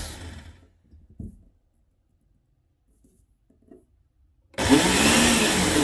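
Oster Pro 1200 blender motor run in short pulses: one burst dies away in the first half second, then after a few seconds of quiet the motor starts again loudly about four and a half seconds in.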